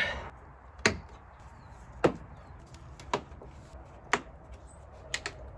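Plastic clips of a Ford Fiesta ST150's lower bumper grille snapping into place as the grille is pushed home by hand: four sharp clicks about a second apart, then a quick double click near the end.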